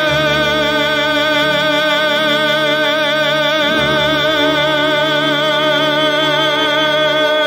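A male singer holding one long, high sung note with wide vibrato through a PA, over instrumental accompaniment.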